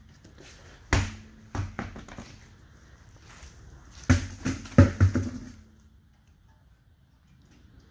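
A removed car wheel and tyre thudding and knocking as it is handled and set down: a few knocks about a second in, then a louder run of low thuds around four to five seconds in.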